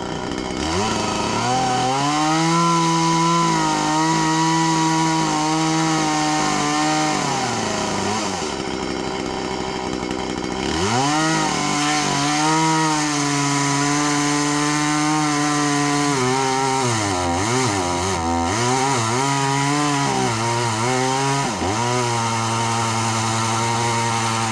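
Two-stroke chainsaw revving up and running at full throttle for several seconds, dropping back to idle briefly, then revving up again and running on, its pitch dipping several times midway.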